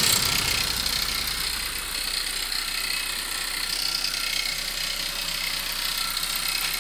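VW 1.2 TSI petrol engine idling: a steady mechanical running sound with a fine, fast ticking.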